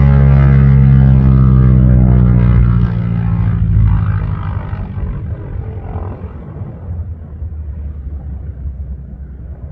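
1945 North American SNJ-6 Texan's Pratt & Whitney R-1340 Wasp radial engine and propeller running at high power, loud, with a pitch that slides slightly lower, then fading away to a dull rumble after about three seconds.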